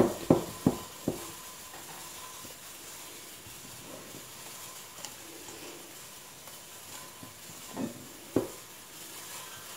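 Hands kneading and pulling apart risen yeast dough in a stainless steel bowl, soft squishing with a few knocks against the bowl, three in the first second and two near the end, over a faint steady hiss. The dough is being knocked back and torn into pieces for shaping into small balls.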